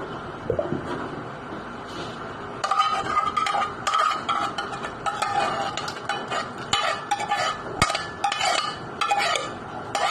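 A metal spoon scraping and knocking inside a metal cooking pot, clearing out the last of the cooked macaroni. The strokes start about two and a half seconds in and come in a quick, irregular series, the pot ringing with each.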